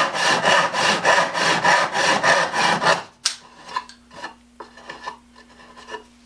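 Hand saw filed to 10 teeth per inch cutting poplar, with quick even strokes at about four a second. The sawing stops about three seconds in, followed by a few light knocks and a faint steady hum.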